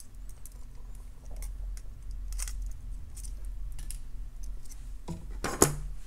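Small metallic clicks and ticks of jewellery pliers and thin wire as a wire loop is wrapped closed, with one louder click near the end.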